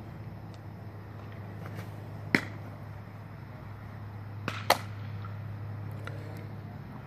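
Sharp leather pops of a baseball smacking into a glove, twice, about two seconds apart; the second pop has a fainter tap just before it. A steady low hum runs underneath.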